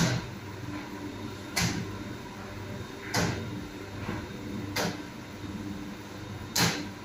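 A metal scoop knocking sharply against the rim of a steel mixing bowl as muffin batter is portioned into paper cups, four knocks at a steady pace of about one every second and a half, the last one loudest, over a faint low hum.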